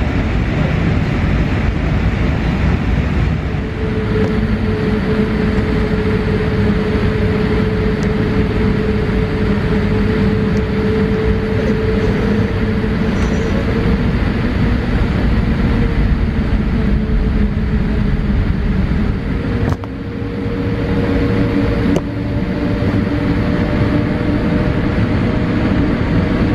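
Cabin noise of a Boeing 787-8 taxiing onto the runway, heard from a window seat beside the wing: a steady rumble of its Rolls-Royce Trent 1000 engines with a whining hum at two pitches. Near the end the whine starts to rise as the engines spool up for takeoff.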